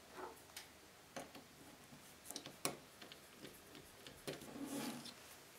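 Faint, irregular light clicks and taps of small metal parts and a small driver as hex-head screws are fitted to fasten a toy steam locomotive's connecting rod.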